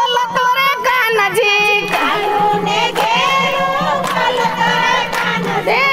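Group of women singing a Gujarati devotional kirtan together, with hand clapping in time.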